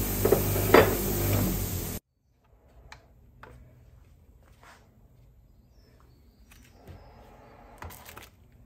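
Bench grinder running with a wire brush wheel as a cast Nordic gold plaque is pressed against it, with a couple of sharp scratchy spikes. It stops abruptly about two seconds in, and faint clicks and clunks follow, a cluster near the end as a heavy metal ingot is set on a digital kitchen scale.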